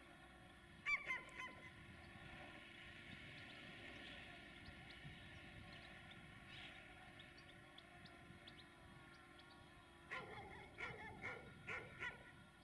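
Short pitched animal calls: a quick cluster of them about a second in and another run of short calls near the end, over a faint steady hum.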